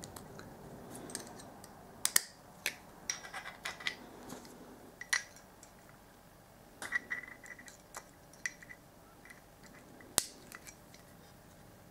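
Circlip pliers and a steel circlip clicking and scraping against a pit bike's splined kickstart shaft as the circlip is fitted over the spring and spacer. The clicks are small, light and irregular, with one sharper click about ten seconds in.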